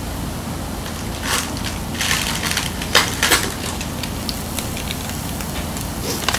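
Handling noises while rice is fetched and served: a few short rustles and crackles, the loudest about three seconds in, and a sharp click near the end, over a steady low background hum.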